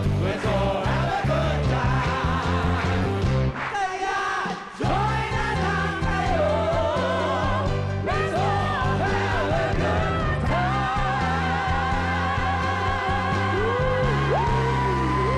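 Pop music with singers over a band and a steady beat. The music drops away for about a second around four seconds in, then comes back. A singer holds a long high note near the end.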